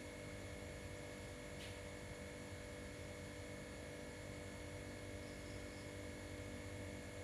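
Steady hum made up of several faint, level tones over a low background hiss, with one faint short click about one and a half seconds in.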